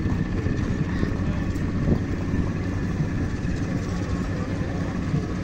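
Steady low engine drone with a constant pitch.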